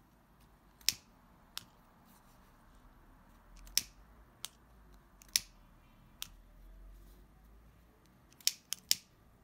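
Pocket lighter clicked repeatedly, a series of short, sharp clicks with three in quick succession near the end, as it is lit to melt and fuse the ends of an organza ribbon.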